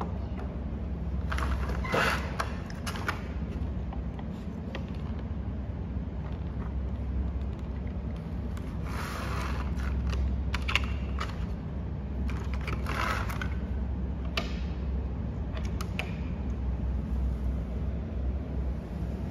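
Hands handling a black plastic snack tray and wafer pieces: scattered clicks, taps and short plastic scrapes, a few seconds apart, over a steady low hum.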